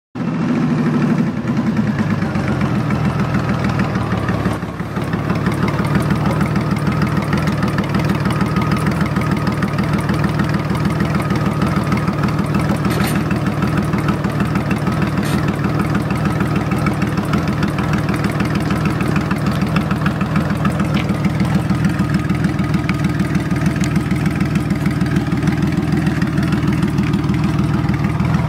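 Cruiser motorcycle engine idling steadily, with a brief dip in level about four and a half seconds in.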